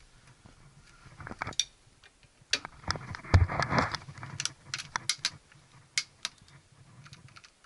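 Scattered clicks and knocks, with a rustling scrape about three seconds in, from a hand handling the control lever and fittings inside a Yanmar tractor cab.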